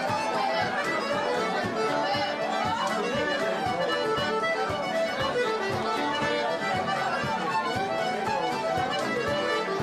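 Irish traditional session music: a button accordion leads a lively tune in quick runs of notes, with a fiddle and a bodhrán beaten with a tipper playing along.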